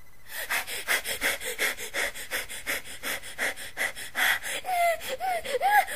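A person panting rapidly and frantically in panic, several quick breaths a second, with a few high-pitched squeaky whimpers near the end.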